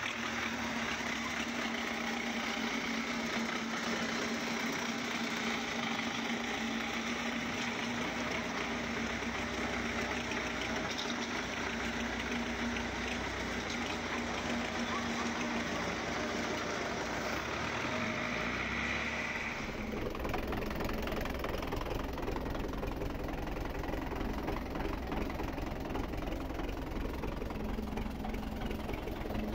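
Belarus tractor's diesel engine running steadily. The engine sound changes abruptly about two-thirds of the way through.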